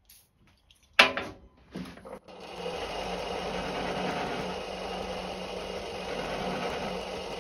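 A sharp knock about a second in as the machine starts up, then a Centec 2B horizontal milling machine runs steadily, its arbor-mounted toothed cutter milling a block of aluminium.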